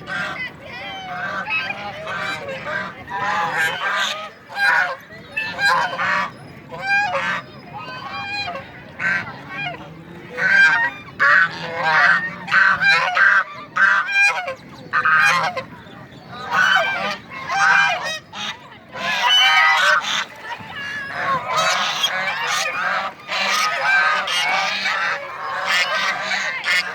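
Several white domestic ducks quacking over and over, their calls overlapping one another.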